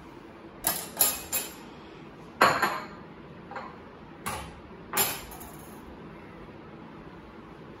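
Dishes and cutlery being handled on a kitchen benchtop: a series of about seven sharp clinks and knocks, three close together near the start and the loudest about two and a half seconds in.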